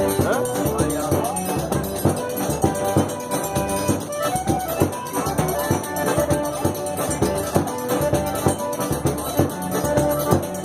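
Forró dance music playing: a sustained melody over a steady, even beat.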